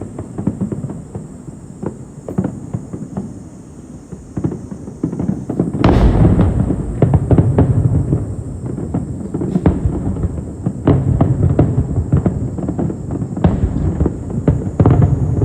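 Fireworks display: shells bursting with booms and crackles, sparse and quieter at first. About six seconds in, a heavy barrage of loud booms begins and keeps going.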